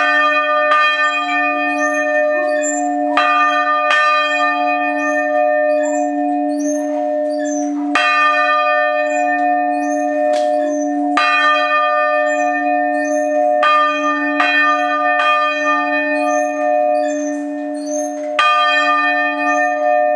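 Several bronze church bells in a timber bell frame ringing together at close range: their clappers strike at irregular intervals, about once a second, each stroke overlapping the ringing of the others over a steady low hum.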